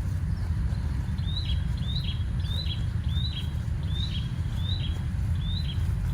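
A bird repeating a short high chirp, about three calls every two seconds, starting about a second in, over a steady low rumble.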